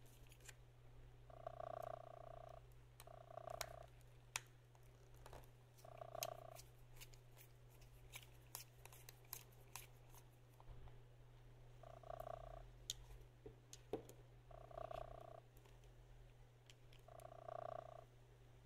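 Faint clicks and ticks from a precision screwdriver turning small hex screws out of a plastic GPS casing, over a steady low electrical hum. Short, steady two-tone hums come and go irregularly, every few seconds.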